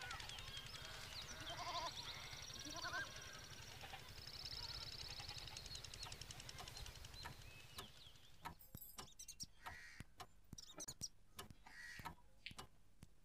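Faint bleating livestock, a few short wavering calls over a steady low hum. About eight seconds in the hum stops and a run of irregular clicks and taps follows.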